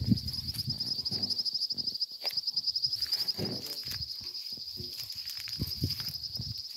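A steady high-pitched insect trill with a fast, even pulse, over irregular low thumps and rustling close by.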